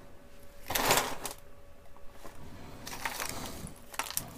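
Small tools and objects being handled on a workbench: a short rustling rush about a second in, then a few light clicks and rattles near the end.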